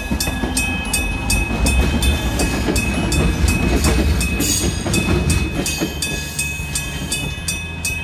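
Level-crossing alarm ringing steadily at about three strikes a second, its chime locally heard as "ichi-chin-chin". A Kumamoto Electric Railway train passes over the crossing, its wheels rumbling and clattering, loudest in the middle and easing off near the end.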